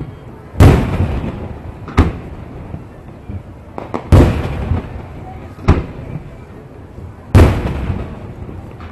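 Aerial fireworks shells bursting overhead, each boom echoing and rumbling away. Three big bursts come about three and a half seconds apart, with shorter, sharper cracks between them.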